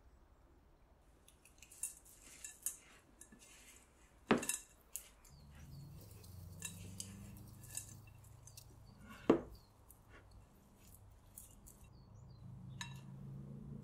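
Silicone spatula stirring and folding chocolate chip cookie dough in a glass mixing bowl: scattered scrapes and clinks against the glass, with two sharp knocks about four and nine seconds in.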